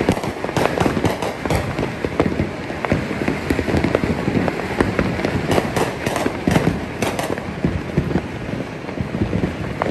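Many fireworks and firecrackers going off at once across a neighbourhood: a dense, unbroken crackle of pops and bangs, with a cluster of sharper, louder bangs a little past the middle.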